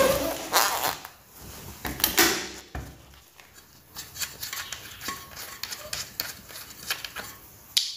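Handling noise around a bicycle wheel on a concrete floor: a few loud knocks in the first couple of seconds, then faint clicks and taps as fingers work at the tyre's valve, and one sharp click near the end.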